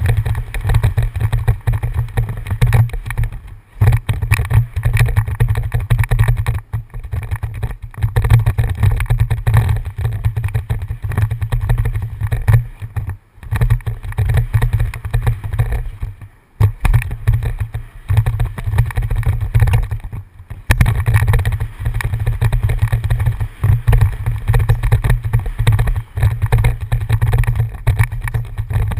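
Wind buffeting a helmet-mounted camera's microphone as a downhill mountain bike runs fast down a dirt trail: a loud, low, fluctuating rumble with rattle from the bike over the ground. It drops away briefly a few times.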